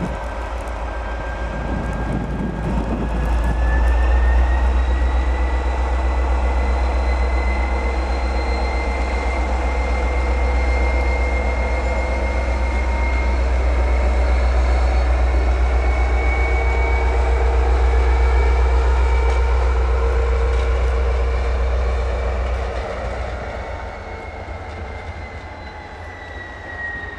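SNCF CC 72000-class diesel-electric locomotive running slowly past: a deep steady engine drone with a high whine over it that rises a little, holds, and falls away near the end as the locomotive passes.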